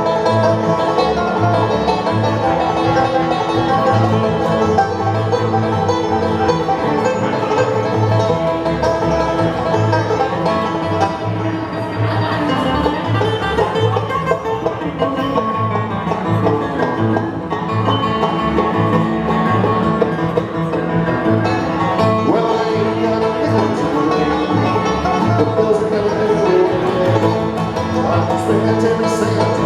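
Live bluegrass band playing an instrumental break in a song: banjo and guitar picking over a steady bass pulse.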